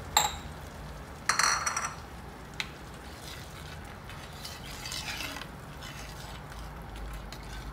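Metal spoon stirring a thin, watery curry in a clay pot, with ringing metal clinks at the start and again, louder, about a second and a half in, then softer stirring.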